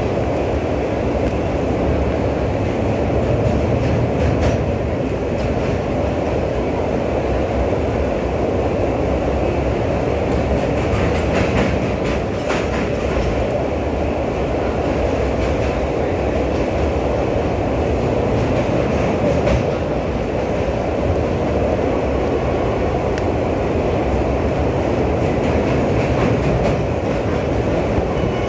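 Coach of the Ratnachal Superfast Express, heard through an open window while running at speed across a steel truss bridge: a steady rumble and rattle of wheels on rails. A few sharp clicks stand out from it now and then.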